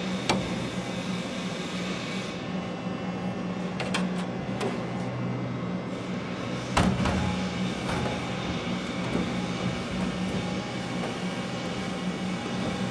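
Hand tools knocking and clicking against the bare aluminium body panels of a BMW 507, twice sharply (right at the start and about halfway through), with a few lighter knocks between, over a steady low hum.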